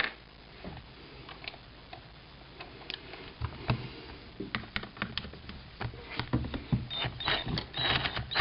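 Clicks of handling and fitting a driver bit, then a power drill run in several short bursts from about three and a half seconds in, backing out a screw from the rifle's action.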